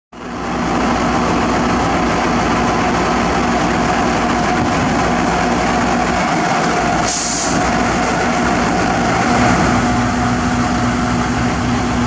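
Heavy diesel engine running steadily at idle, with a brief hiss of air about seven seconds in.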